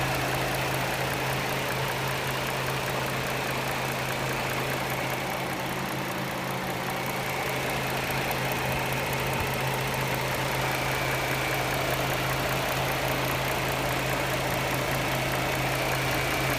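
2009 Dodge Charger 3.5-litre V6 idling steadily, with a light, regular ticking from the engine, a noise whose cause the owner does not know. A fan in the engine bay runs with it, moving air.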